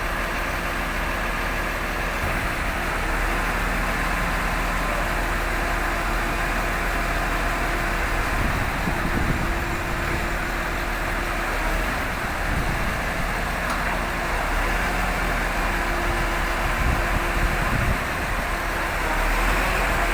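Heavy vehicle engine running steadily at a constant speed.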